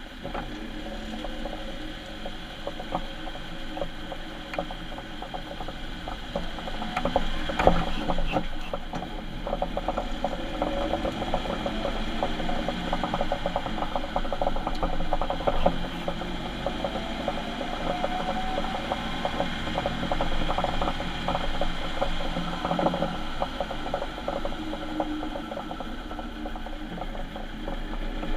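Ford Transit van's bad differential, a dense rapid clicking and rattling over the drivetrain hum, with a faint whine rising in pitch through the middle: the sound of a worn, failing diff.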